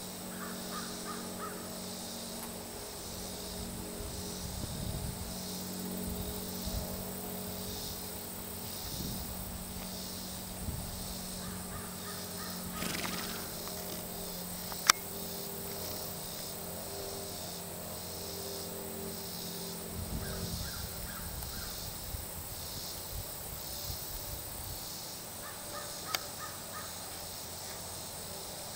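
Summer pasture ambience: insects chirping in a steady, regular pulse, a bird calling in short runs of repeated notes four times, and a faint steady low hum underneath. A single sharp click about halfway through is the loudest moment.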